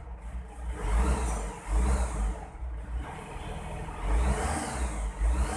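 Isuzu Trooper's 4JX1 four-cylinder turbodiesel running and being revved, rising and falling several times. It has just been restarted after a lost contact at the ECU connector pins to the injectors was repaired.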